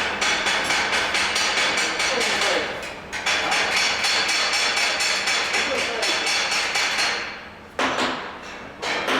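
Rapid, repeated hammer strikes on metal, several a second. They break off briefly about three seconds in, resume, then die away, with two single strikes near the end.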